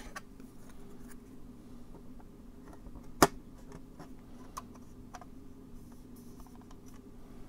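Plastic model car parts being handled: hands press a glued hood down onto the kit's plastic body, giving light taps and one sharp click about three seconds in, over a steady low hum.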